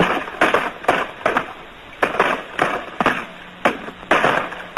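Irregular rifle gunfire in a skirmish, about two shots a second, each with a short echoing tail, on an early sound-film soundtrack.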